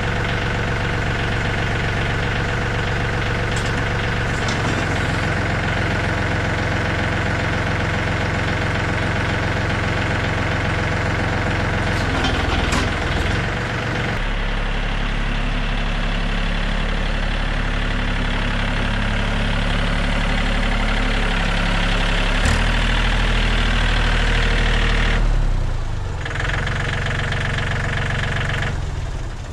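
John Deere 3320 compact tractor's diesel engine running steadily. Its tone shifts a little after halfway and again near the end, with a couple of brief sharp knocks.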